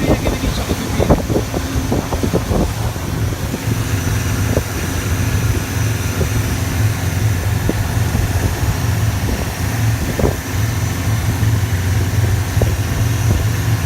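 Longtail taxi boat's engine running steadily at cruising speed, a constant low hum, with wind buffeting the microphone and scattered thuds, thickest in the first few seconds.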